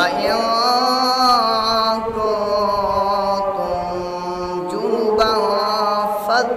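A man's voice chanting in Arabic recitation style, holding long drawn-out melodic notes, with a new phrase beginning about five seconds in.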